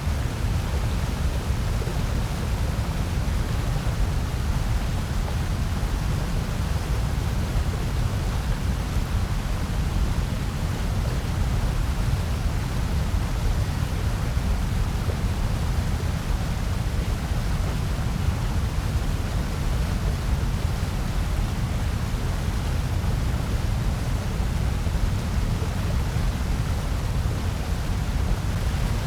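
Steady electronically generated noise, an even featureless hiss with most of its weight in a deep low rumble and a fainter wash above; it never changes.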